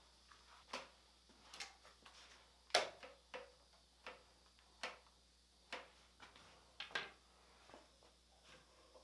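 Irregular light clicks and knocks, about a dozen short sharp hits at uneven spacing, the loudest about three seconds in.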